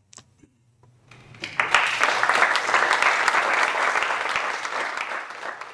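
Audience applauding, starting about a second in, swelling quickly and then slowly tapering off near the end.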